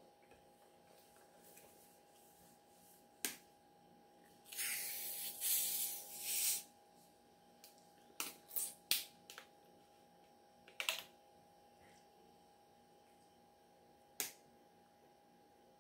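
Plastic bottle of soda being opened: a hiss of escaping carbonation for about two seconds, followed by a string of sharp clicks from the screw cap.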